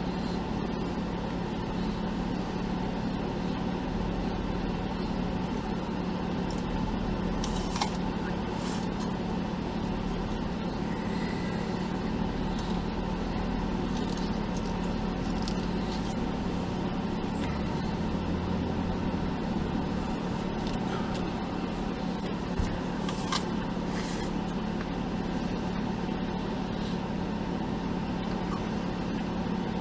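A Jeep's engine running steadily with a constant low hum, with a few faint clicks over it.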